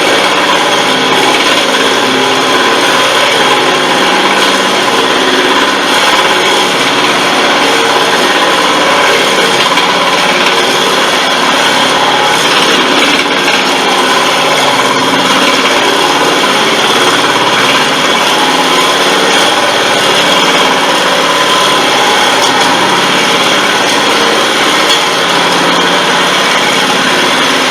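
Vevor 1440 wood lathe running at its slowest speed while a 5/8-inch twist drill held in the tailstock bores into construction fir: a steady machine running sound mixed with the noise of the bit cutting wood.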